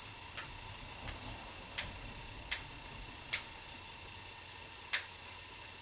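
A series of small sharp clicks, about six in all and under a second apart with one longer pause, the loudest near the end: plastic and metal clicking as a compact waterproof camera is handled for disassembly.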